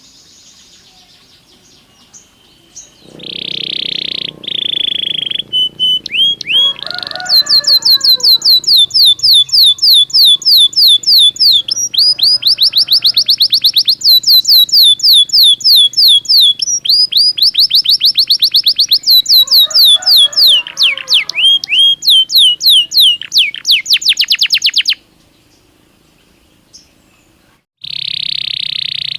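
Belgian canary singing: after a quiet start, a long buzzy note, then a long run of loud, rapid trills of repeated down-slurred whistles, a pause, and another buzzy note near the end.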